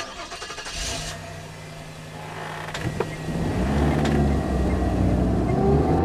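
A vehicle engine running, its pitch rising and falling and growing louder. There is a sudden hit at the start and a swoosh about a second in.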